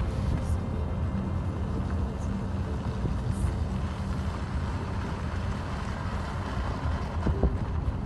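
A car driving along a snowy road: a steady low rumble of engine and tyre noise.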